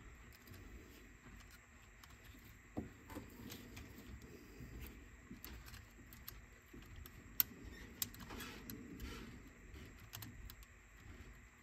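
Faint, scattered clicks and small taps of tiny plastic and metal parts and tools being handled on a workbench, with two sharper clicks about halfway through.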